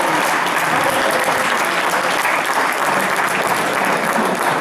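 Audience applauding, a steady clapping that eases off near the end.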